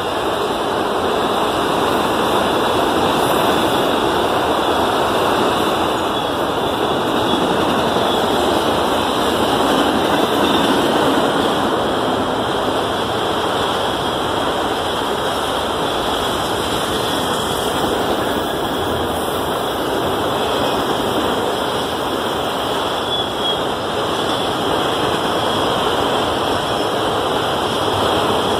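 Freight train of autorack cars passing at close range: steady, loud noise of steel wheels rolling on the rails.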